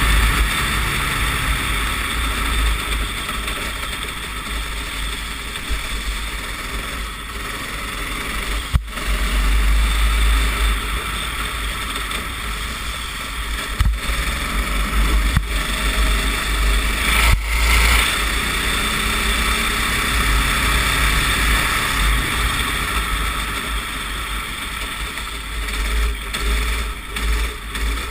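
Racing kart engine running through a lap on a wet track, heard from an onboard camera, with heavy wind rumble on the microphone. A few sharp knocks cut through it.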